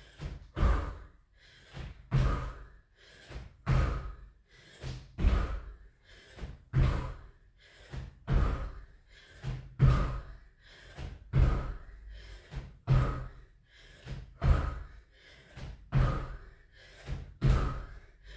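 Jumping squats in trainers on an exercise mat over a wooden floor: a dull landing thud about every one and a half seconds, a dozen or so in all, with lighter knocks and hard breathing between them.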